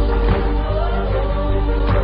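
Background music: a full arrangement with strong bass and held, sustained notes.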